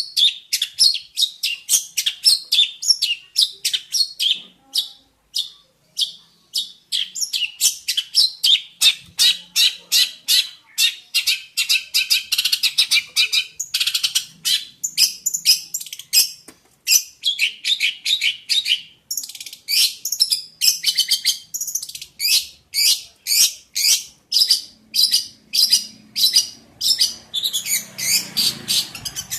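Long-tailed shrike (pentet) singing: a fast, unbroken run of short, high chirping notes, several a second, with brief gaps now and then.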